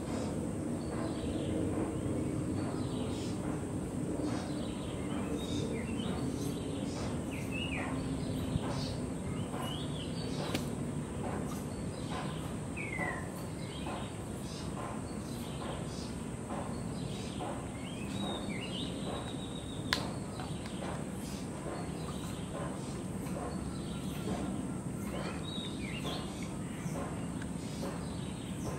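Outdoor ambience of a steady high-pitched insect drone with regular ticking, scattered short falling bird chirps and a low background hum. A single sharp click comes about twenty seconds in.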